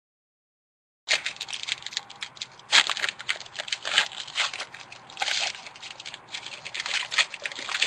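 Foil trading-card pack wrapper crinkling and tearing as it is ripped open by hand, starting about a second in, with sharper crackles now and then.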